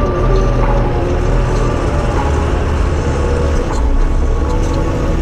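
Telehandler's diesel engine running steadily with a deep drone, heard from inside the operator's cab while the boom lifts a load.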